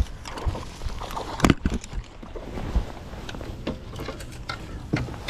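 Scattered knocks and clunks of gear being handled in a small fishing boat as a handheld spotlight is moved about, over a steady low rumble. The sharpest knock comes about a second and a half in.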